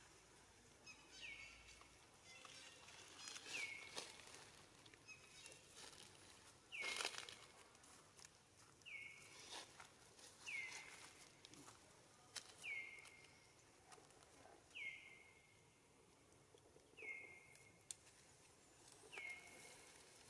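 Faint rustling in dry fallen leaves as a young macaque moves and forages on the ground, loudest about seven seconds in. Through it a short high call repeats about every two seconds, each one dropping in pitch and then holding briefly.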